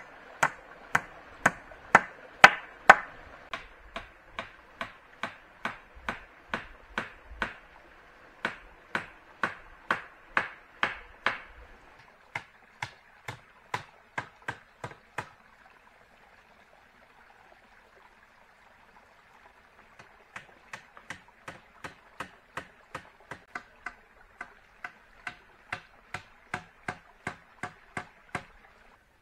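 Steady chopping with a blade into wood, sharp strikes about two a second. The chopping pauses for a few seconds about halfway through, then starts again.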